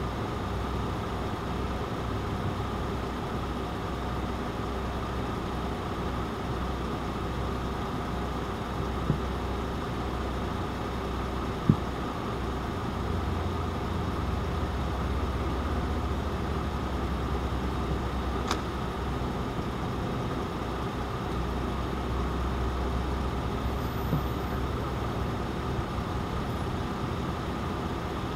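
Steady low hum of a nearby vehicle engine idling, with a few brief clicks.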